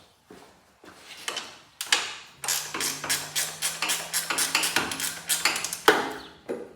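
A hand tool clicking rapidly and steadily on fasteners for several seconds, with a steady low hum under it for part of that time.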